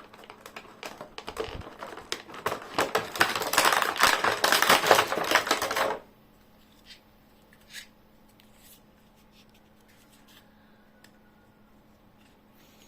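Toy packaging being handled: rapid crackling and clicking, as of plastic wrapping and parts being unpacked, for about six seconds, then it stops suddenly, leaving only a few faint clicks.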